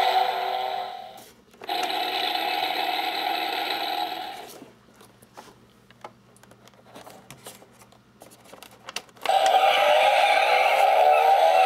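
Electronic race-car engine sound effects played from a Disney Cars 2 Miguel Camino Lights & Sounds toy car's small speaker. A steady engine sound runs for about three seconds, faint clicks and scrapes from handling the box follow, and a revving engine sound rising in pitch starts near the end.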